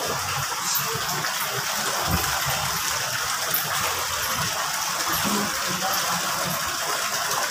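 Steady rushing of running water, an even hiss that stays constant.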